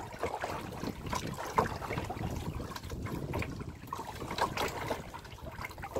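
Water trickling and lapping around a plastic kayak as it is paddled along, with small irregular splashes and drips.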